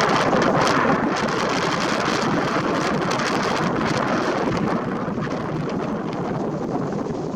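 Strong wind buffeting the microphone over the broad rushing noise of a Cessna Citation's turbofan engines, which slowly fades as the jet climbs away.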